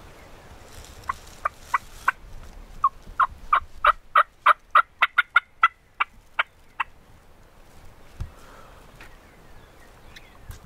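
Turkey yelping: a run of about seventeen short, sharp yelps over some six seconds, a few spaced notes first, then a louder, steady series of about three a second.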